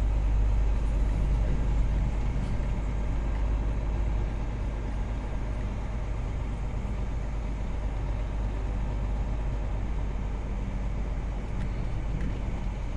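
Engine and road noise of a moving vehicle heard from inside its cab: a steady low drone, a little louder for the first few seconds and then even.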